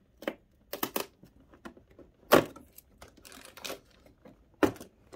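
Cardboard advent-calendar door being pried and torn open: a run of sharp clicks and snaps, the loudest about halfway through, then the rustle of a crinkly plastic wrapper as the item is pulled out.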